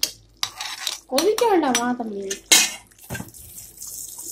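Steel ladle stirring thick mutton curry in an aluminium pressure-cooker pot, scraping and clinking against the metal, with a sharp clink about two and a half seconds in.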